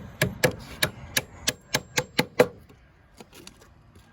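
Hammer blows: a quick, even run of about nine strikes in two and a half seconds, then a few faint taps.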